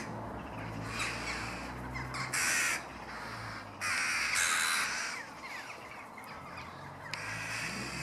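A flock of crows cawing harshly overhead, several rough calls with the loudest about two and a half and four seconds in: alarm and mobbing calls at an intruder near their young.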